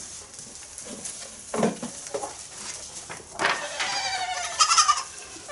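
A goat bleating: one long, wavering call about three and a half seconds in, after a few soft low sounds.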